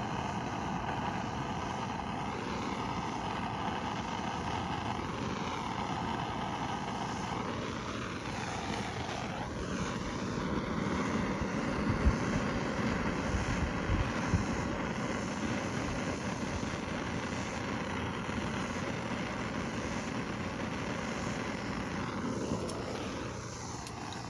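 Handheld gas torch burning with a steady rushing hiss while a spliced wire joint is heated for soldering; the flame is shut off abruptly at the very end.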